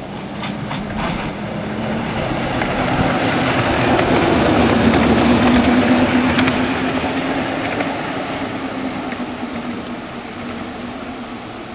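A 7.25 inch gauge Co-Co battery electric miniature locomotive passing by, running light engine: a low electric hum with wheels running on the rails. It grows louder to a peak about halfway through and then fades, the hum dipping slightly in pitch as it passes.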